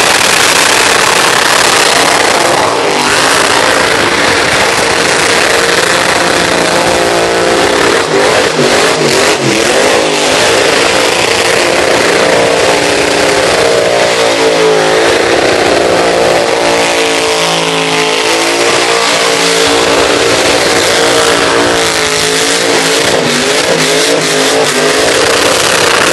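Pickup truck engine held at high revs during a burnout, its pitch rising and falling again and again as the throttle is worked. The rear tyres spin against the pavement with a steady, loud rushing noise under the engine.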